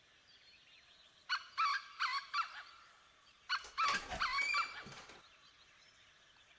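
Hinges of a black metal swing gate squealing in short, honk-like creaks as the gate is pushed open, in two bursts, with a dull clank of the metal leaf about four seconds in.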